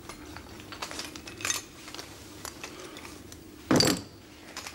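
Small hard objects from a man's pockets being set down one by one on a table: a string of light clicks and clinks, with a louder clatter near the end as a magnifying glass is laid down.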